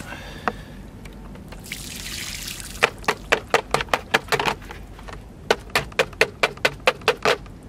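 Water pours off a bowl of bait through a round mesh sieve. Then a plastic bowl is knocked sharply against the sieve's rim again and again, about twenty knocks in two quick runs, to shake out what is left.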